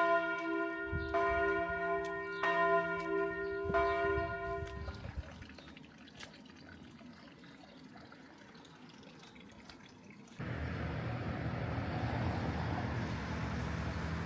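A bell struck four times, about a second apart, each stroke ringing on and the ringing dying away by about five seconds in. About ten seconds in, a steady rushing noise with a low hum starts suddenly.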